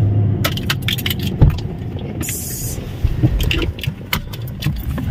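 Car driving slowly, heard from inside the cabin: a steady low road and engine rumble with scattered clicks and light rattles, a thump about a second and a half in and a short hiss a little after two seconds.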